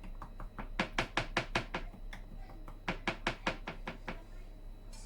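Toothpick pricking holes all over raw pizza dough, its tip tapping the board beneath in quick runs of about six taps a second, with a short pause in the middle. The docking keeps the base from puffing so it bakes crispy underneath.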